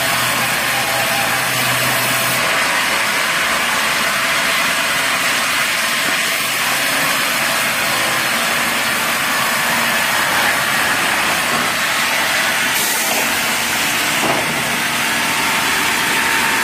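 Large sawmill band saw running and cutting lengthwise through a log, a steady loud hiss-like noise of the blade in the wood over the machine's running.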